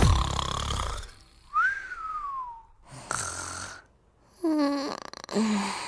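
Music fades out about a second in, then snoring: a whistled breath that rises and then slides down in pitch, a rasping snore, and two short low-pitched snores near the end.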